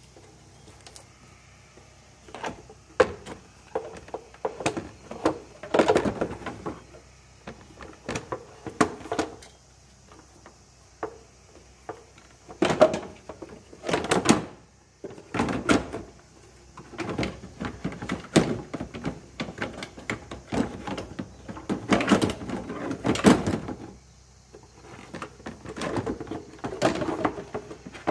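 Hands handling and fitting parts on top of a Suzuki K6A engine: irregular clunks, clicks and rattles in short clusters separated by pauses.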